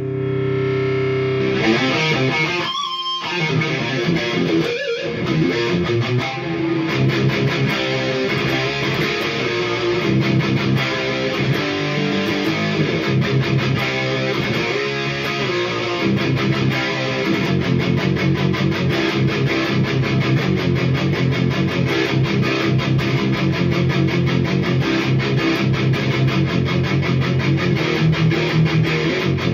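ESP LTD H-400 electric guitar with Seymour Duncan JB/59 pickups, tuned to drop C, played through a Hiwatt Hi-5 5-watt all-tube head on its high-gain channel into Celestion Vintage 30-loaded 1x12 cabinets. A held chord rings, breaks off briefly around three and five seconds in, then gives way to steady metal riffing with many fast picked notes.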